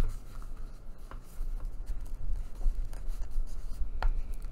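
Paper rubbing and handling noise as a needle and thick thread are forced through the fold of a paper journal signature pressed against a desk. There are a couple of sharp ticks, one about a second in and one near the end.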